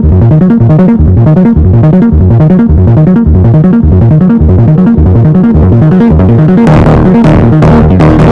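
Background music with a steady, repeating beat; the arrangement gets fuller near the end.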